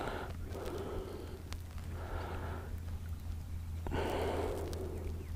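A person breathing audibly close to the microphone, a few soft breaths over a low steady hum.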